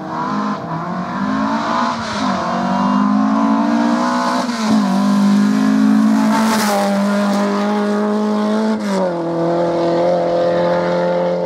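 Ford Escort Mk2 rally car engine under hard acceleration, revving high; the pitch climbs and drops back sharply at gear changes, about five seconds in and again near nine seconds, then holds steady at high revs.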